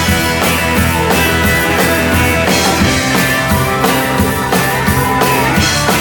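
Live rock band playing an instrumental passage: two electric guitars over a drum kit, with a steady driving beat.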